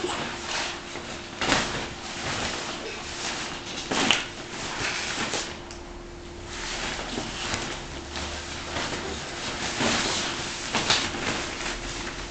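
Hollow plastic ball-pit balls clattering against each other, together with the rustle of a pop-up nylon play tent, as a toddler crawls and rolls through them; irregular clicks and knocks over a steady rustle.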